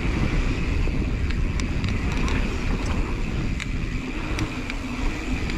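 Wind buffeting the camera microphone over the tyres of a Rocky Mountain Element C70 full-suspension mountain bike running on a dirt trail at speed, with scattered sharp clicks and rattles from the bike.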